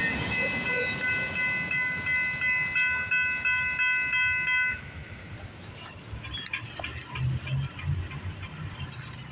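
Freight train of flatcars rolling past, with rail noise and a steady high-pitched ringing tone that cuts off suddenly about five seconds in. After that the sound falls away to a much quieter rumble with scattered clicks.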